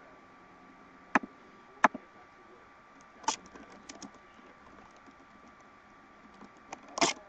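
Computer keyboard and mouse clicks, irregular: two sharp clicks in the first two seconds, a click followed by a few lighter taps around the middle, and a louder cluster of clicks near the end, over a faint steady hiss and thin hum.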